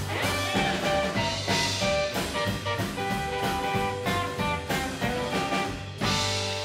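Live rockabilly band playing an instrumental passage on electric guitar, strummed acoustic guitar, upright bass and drum kit, with a loud chord struck about six seconds in that rings on.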